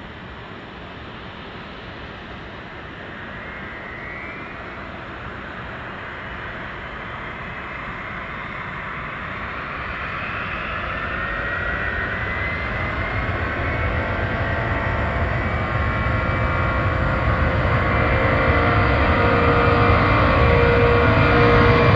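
Twin Pratt & Whitney JT9D turbofans of a 1983 Boeing 767-231 freighter at takeoff power, growing steadily louder as the jet comes closer on its takeoff roll. Rising whining tones ride over a roar and a deepening low rumble.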